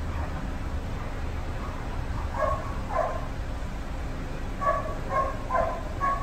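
A dog giving short, high yips and barks: two about two seconds in, then a quicker run of four near the end.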